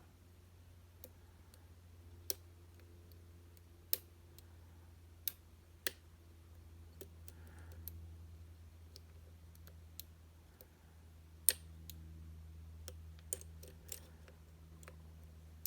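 Lock picking on an M&C Condor slider lock: faint, scattered sharp clicks and ticks every second or two as the pick works the sliders and top pins under tension, over a low steady hum.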